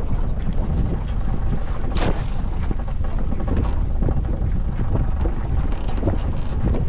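Steady low wind rumble on the microphone aboard a small open boat, with a single sharp knock about two seconds in.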